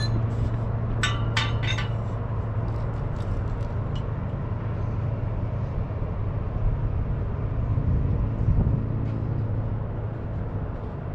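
Steady engine hum with a few sharp metallic clinks about a second in.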